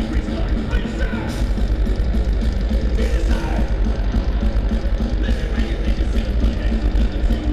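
Thrash metal band playing live and loud: heavily distorted electric guitars over fast drums, heard from within the crowd with a boomy, overloaded low end.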